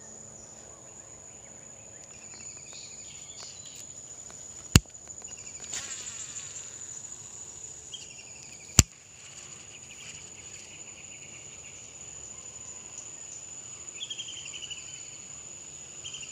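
Steady high-pitched drone of insects, with further chirping in the second half. Two sharp clicks cut through it about four seconds apart near the middle.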